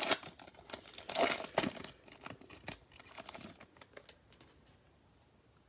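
A trading card pack's wrapper being torn open and crinkled by hand, in crackling bursts that die away about four seconds in.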